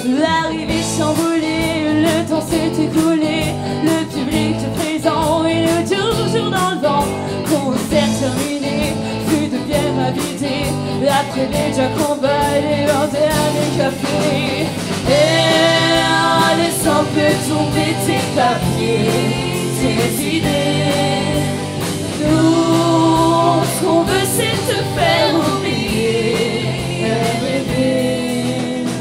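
Live band performance: drums and electric guitars with several voices singing together, a louder sung passage starting about halfway through.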